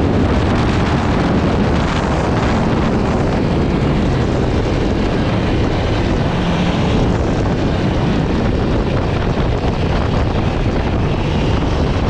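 A 2018 Aprilia RSV4 RF's V4 engine running at speed on track, heard from a tank-mounted camera and largely buried under steady wind noise on the microphone.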